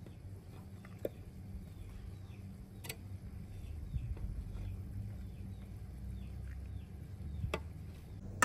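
A small bird chirping over and over, short falling chirps about twice a second, over a low steady hum, with a few light clicks.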